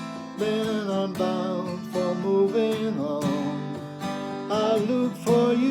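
Music: strummed acoustic guitar with a sustained, wavering melody line held over it in a slow folk song.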